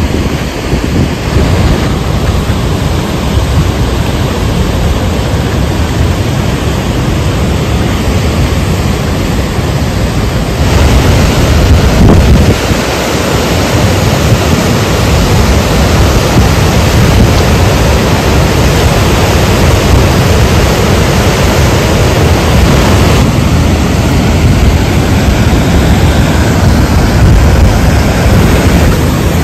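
Loud, steady rushing noise, heaviest in the low end, the kind made by wind on the microphone or by nearby rushing water or heavy rain. It changes in character abruptly about a third of the way in and again about three-quarters through.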